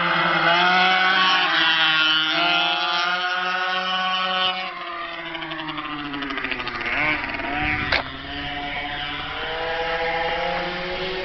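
Blata B1 minibike's small two-stroke engine revving up and down as it is ridden, its pitch rising and falling; it is louder for the first few seconds, then fainter. One sharp click a little under eight seconds in.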